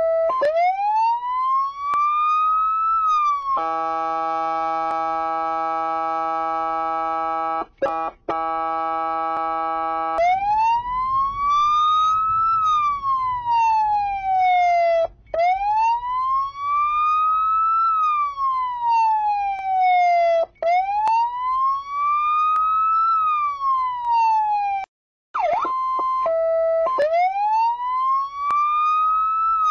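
Police siren wailing in slow sweeps that rise and fall over about five seconds each. Early on it gives way for several seconds to a steady chord of several held tones, and it drops out briefly twice.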